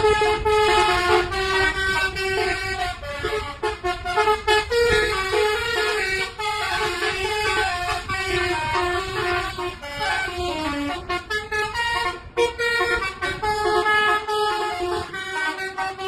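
A bus's telolet horn, a set of multi-tone air horns, playing a tune of short notes that step quickly from pitch to pitch, over a steady low rumble.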